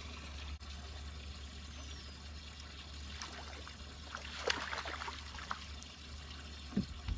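A hooked fish splashing and thrashing at the lake surface beside a boat, a cluster of sharp splashes about four to five seconds in, over water trickling and a steady low hum. A couple of dull thumps come near the end.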